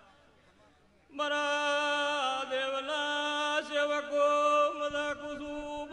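A male voice singing a drawn-out devotional chant (dhun) through a microphone, holding long steady notes with small turns of pitch. It comes in about a second in, after a moment of silence.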